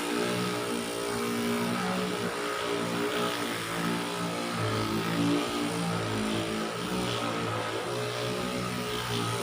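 Handheld electric 'dolphin' massager running with a steady motorized buzz. Its pitch shifts up and down every half second or so as it is worked over the body.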